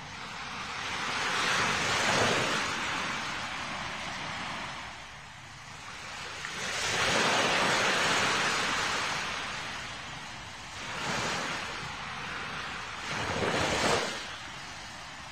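A rushing noise, like surf, that swells and fades about four times with no pitched sound in it.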